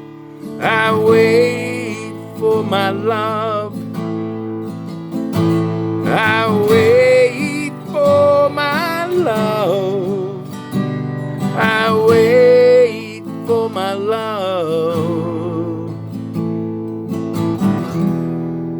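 Acoustic guitar strummed under a voice singing three phrases of long wordless notes with vibrato.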